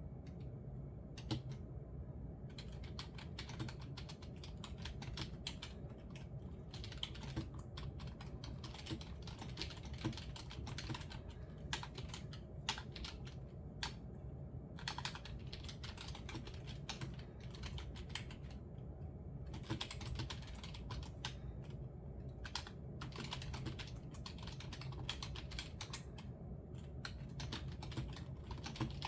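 Typing on a computer keyboard, the keystrokes coming in runs with short pauses between them, over a steady low hum.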